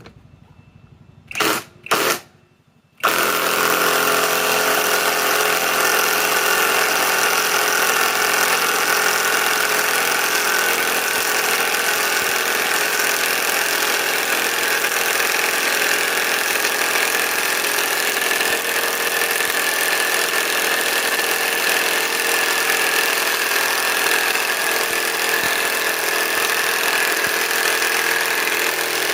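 Hercules compact 1/2-inch impact wrench (Gen 2) driving a 4-inch lag screw: two short trigger blips, then about three seconds in it runs continuously at full speed, hammering the screw in without a break.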